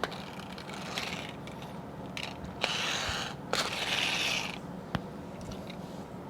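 Pull-back motor of a die-cast toy fighter jet ratcheting and whirring in a few short bursts as the toy is drawn back on its rubber wheels and let go, with a few sharp clicks in between.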